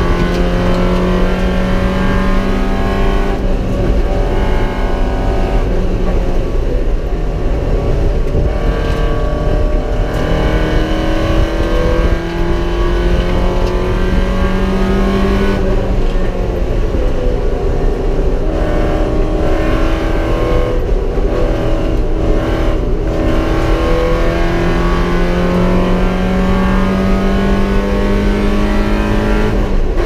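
Porsche 944 race car's inline-four engine driven hard, heard from inside the cockpit: the note climbs with the revs and drops back sharply several times through the gears, over a steady low rumble.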